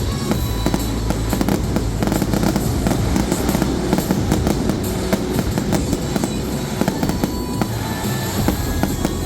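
Fireworks going off in rapid succession: a dense, continuous string of bangs and crackles, over background music.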